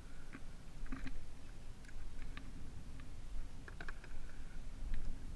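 Handling noise from landing a hooked snook beside a kayak: scattered light clicks and taps over a steady low rumble.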